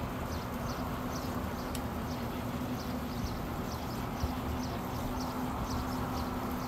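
A small bird chirping over and over, short high chirps about two a second, over a steady low hum.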